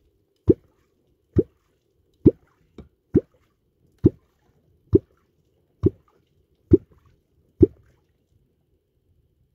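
Wooden catfish clonk (kwok) struck on the water surface in a steady rhythm, giving nine deep, hollow plops a little under one a second that stop near the end. The sound is meant to call Danube catfish (wels) up to the bait.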